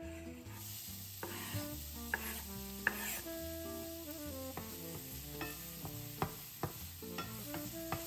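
Shakshouka frying in a pan, sizzling steadily from about half a second in, as it is stirred, with several sharp taps of the utensil against the pan. Soft background music plays underneath.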